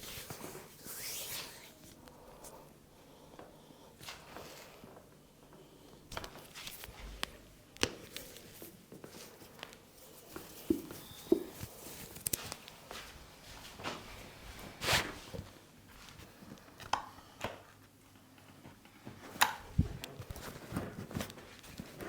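Hands massaging a head: soft rubbing and handling, with a few sharp pats or taps scattered irregularly.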